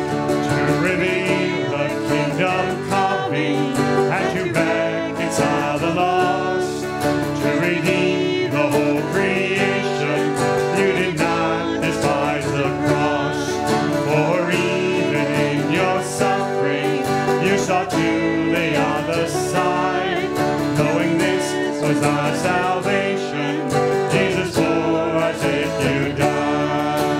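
Acoustic guitar strummed steadily, accompanying voices singing a worship song.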